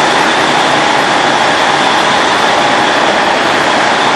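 Semi truck moving slowly across a steel ferry car deck: a steady loud mechanical noise with a constant high whine running through it.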